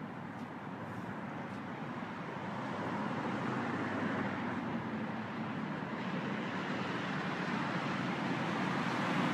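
Steady road-traffic noise from a city street, a continuous hum of passing vehicles that grows gradually louder.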